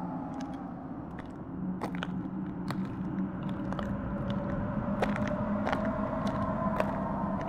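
Irregular crackling and crunching clicks over a low steady drone that swells about a second and a half in, with a faint higher tone gliding slowly.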